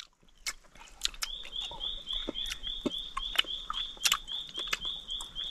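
A regular train of short, high chirps, about three or four a second, starts about a second in and keeps on, called by an unseen animal in the forest undergrowth. Over it come sharp, wet clicks and lip smacks of a man chewing wild honeycomb.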